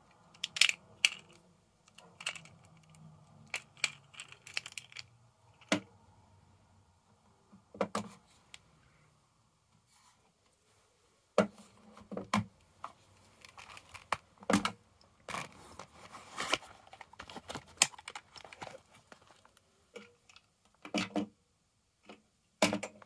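Irregular clicks and metal clinks as an Umarex Legends S25 .177 CO2 revolver, its speedloader and metal cartridge shells are handled on a wooden table, with a denser stretch of handling noise past the middle.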